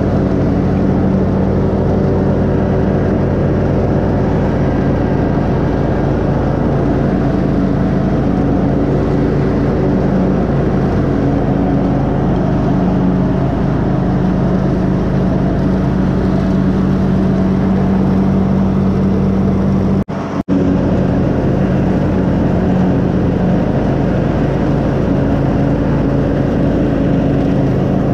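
Riding lawn mower engine running steadily under load while cutting grass. Its even, unchanging drone drops out briefly about two-thirds of the way through.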